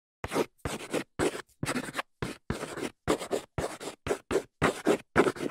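Chalk writing on a blackboard: a run of short scratchy strokes, about two a second, each starting with a light tap.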